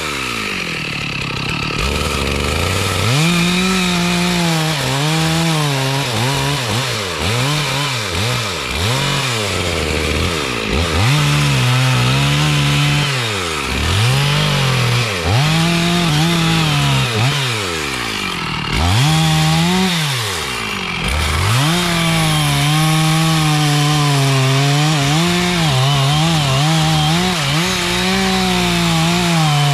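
Chainsaw cutting mahogany wood, the engine revved up to full speed and let fall back again and again in short cuts, then held at full speed steadily under load for the last several seconds.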